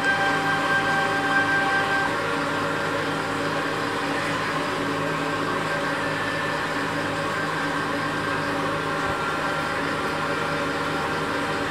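Steady mechanical hum made of several steady tones over a noisy hiss; a higher whine in it stops about two seconds in.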